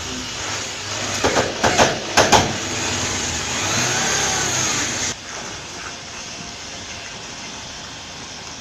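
Corded electric drill running steadily, with a few sharp knocks a little over a second and about two seconds in. It cuts off suddenly about five seconds in, leaving a quieter steady hum.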